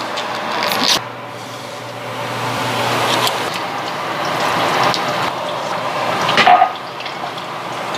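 Food frying with a steady sizzle in a wok and a pan of hot oil as it is stirred with a wooden spatula. A few short knocks or clinks of utensils on the pans cut in, the loudest a little after six seconds in.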